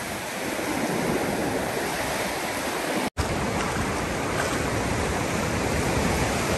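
Ocean surf washing through the shallows: a steady rushing noise, broken by a split-second dropout about three seconds in.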